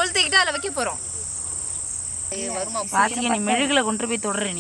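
Voices talking and calling out in two stretches, with a pause in between, over a steady high-pitched hiss.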